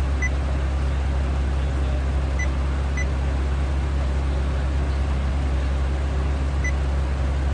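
Four short, high touch-confirmation beeps from an aftermarket touchscreen car stereo as its screen is tapped, two of them close together a few seconds in, over a steady low hum of the car idling.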